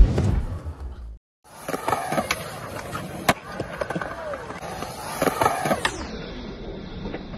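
Skateboard wheels rolling over a concrete skatepark, broken by several sharp clacks of the board's tail and wheels striking the ground during tricks. The sound starts after a brief silent gap about a second in.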